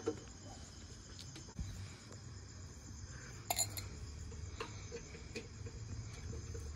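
A few light metallic clicks and clinks from hands working at a motorcycle's fuel line and engine, the loudest about three and a half seconds in, over a faint steady low hum.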